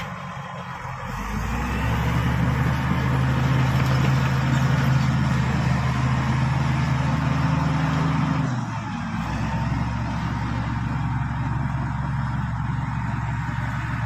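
Diesel engine of a Shantui SD16 crawler bulldozer working under load as it pushes a mound of earth with its blade. The engine note rises and gets louder about a second in, holds steady, then eases back a little past halfway.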